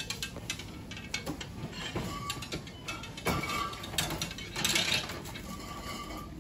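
Clicks and clatter of tongs and the display bins of a self-service bakery case, as pastries are picked out and put into a paper bag. A louder rustle of paper comes about five seconds in.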